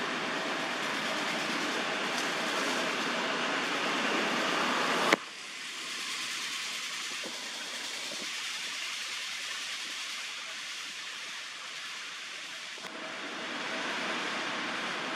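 Steady outdoor background hiss with no distinct source. A sharp click comes about five seconds in, after which the lower rumble drops away until it returns near the end.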